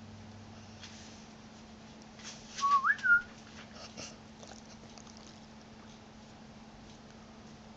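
Dog whimpering in its sleep: one short, high whine that slides upward and then holds, about two and a half seconds in, with a few faint clicks around it.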